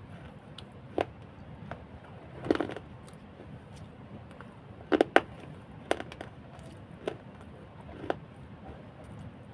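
Close-up mouth sounds of a person eating: scattered wet chewing clicks and lip smacks, roughly one a second, the loudest a quick pair about halfway through, over a steady hiss.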